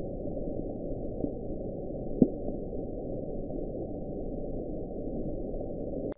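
The NOAA hydrophone recording of the 'Bloop', the unexplained deep-ocean sound: a steady low rush of underwater noise with a brief rising chirp about two seconds in and a fainter one a second earlier, cutting off suddenly near the end.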